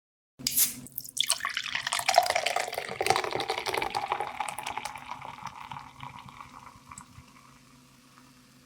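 Running or pouring water, starting about a second in with many small splashes and drips, then slowly fading out.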